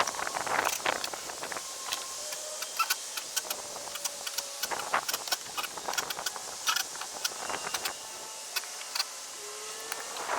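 Construction work: scattered sharp knocks and clicks, irregular, over a steady hiss.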